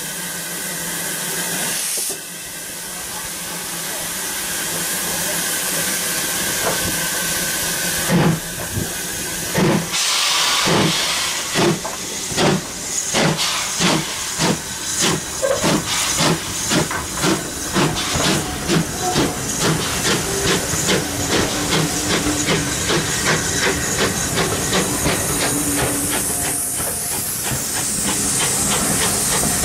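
Steam tank locomotive (LMS Ivatt 2MT 2-6-2T) hissing steam while it stands, then starting away with its train. A first exhaust beat comes about eight seconds in, then chuffs that steadily quicken as it gathers speed. Near the end the coaches roll past with a rising hiss of wheel noise.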